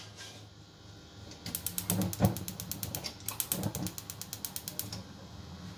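Rapid, evenly spaced ratchet-like mechanical clicking in two runs of about a second and a half each, with a short break between them.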